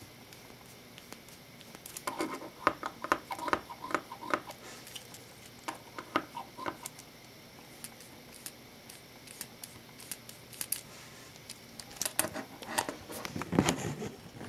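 Plastic Lego Technic parts clicking and rattling as a small suspension model is flexed and handled by hand, in several short clusters of quick clicks.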